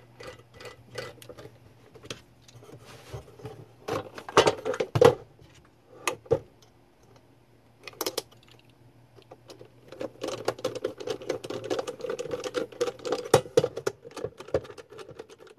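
Scattered clicks and knocks of metal parts being handled on a workbench, then a screwdriver driving a screw into the metal front panel of a power supply, with a fast run of small clicks from about ten seconds in.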